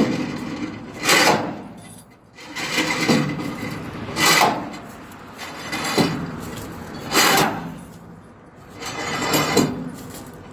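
Rhythmic rasping strokes of a hand tool working on material, about one every second and a half.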